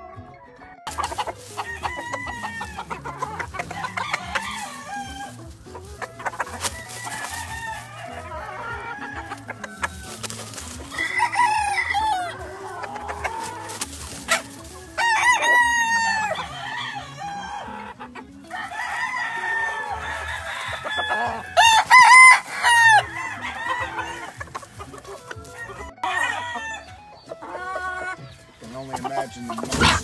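Spangled Butcher gamefowl roosters crowing again and again, with hens clucking between the crows. The loudest crows come about fifteen and twenty-two seconds in.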